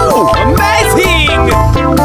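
Upbeat background music with a steady beat, plucked guitar and sliding pitch glides.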